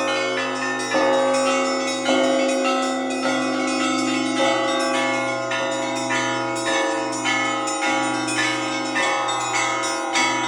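Russian Orthodox church bells ringing: a deep bell struck about once a second, with a busy pattern of smaller bells chiming between its strokes, all ringing on over one another.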